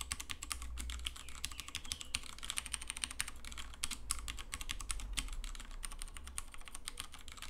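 Continuous fast typing on an Akko x Ducky Zero 3087 mechanical keyboard with tactile Cherry MX Brown switches: a dense, fairly quiet stream of keystrokes, picked up by a lapel microphone well above the keyboard.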